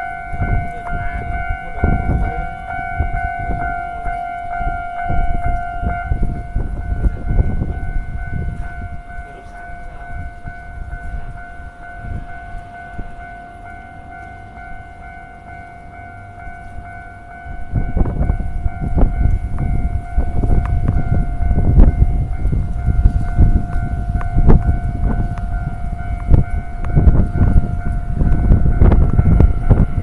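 Japanese railway level-crossing warning bell ringing continuously while the barriers are down, a steady two-tone electronic clang. A loud low rumble sets in about 18 seconds in and becomes the loudest sound.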